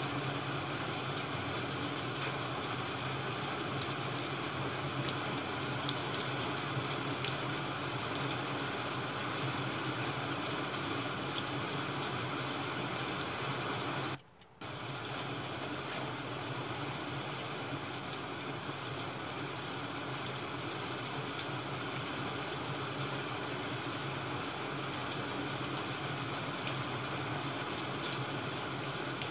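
Ambient crackling wood-fire sound: a steady hiss with scattered sharp pops. It cuts out for about half a second halfway through, then resumes.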